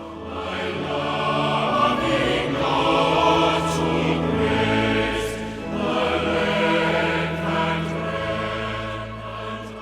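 Choral music with sustained singing voices.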